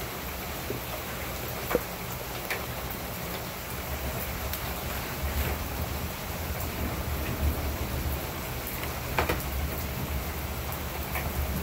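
Steady heavy rain falling on pavement and a house, a continuous hiss with a few sharp drops ticking close by. A low rumble sits underneath from about four seconds in.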